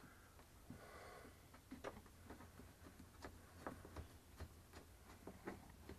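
Faint, irregular clicks and ticks of a hand screwdriver turning a screw into a shower-curtain track.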